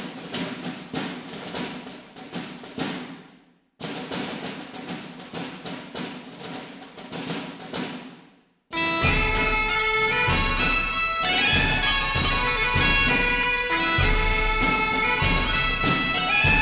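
Background music: a percussive passage of quick, evenly spaced tapping strokes that fades out and starts again, then, about nine seconds in, a fuller track with held droning tones over a steady bass.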